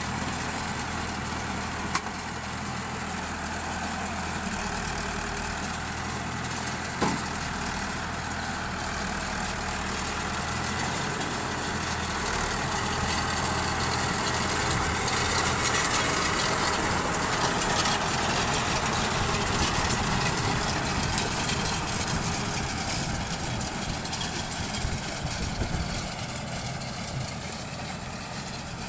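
Tractor engine running steadily while it drives a round straw baler, growing louder through the middle stretch. Two short sharp clicks come about two and seven seconds in.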